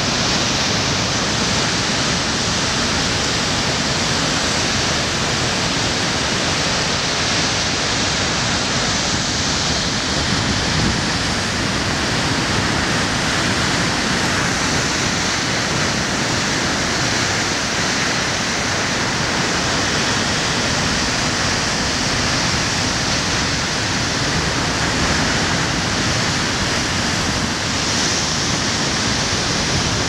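Heavy storm surf breaking and churning over a rocky shore: a loud, steady roar of whitewater with no separate crashes standing out.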